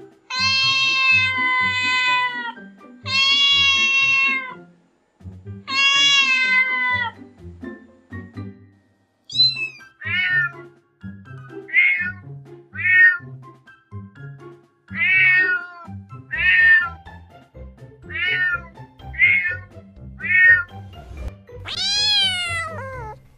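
Domestic cat meowing over background music with a steady beat. There are three long drawn-out meows, then a short rising call, then a run of about ten shorter meows roughly one a second, and a long meow near the end.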